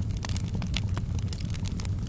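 Wood fire crackling in a fireplace: many quick sharp pops and snaps over a steady low rumble.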